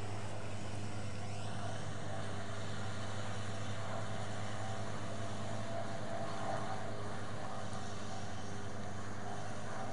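Engine of a Volvo BV202 tracked amphibious vehicle running steadily as the vehicle wades through flood water, heard from a distance as a low, even hum.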